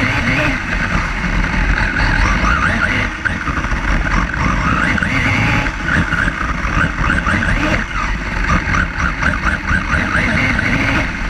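Onboard sound of a Team Durango radio-controlled buggy racing, its motor whine rising and falling in pitch again and again with the throttle, over heavy wind and vibration rumble on the car-mounted camera.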